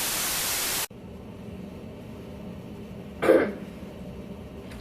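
A burst of TV-style static hiss that cuts off abruptly just under a second in, then quiet room tone and a single short cough about three seconds in.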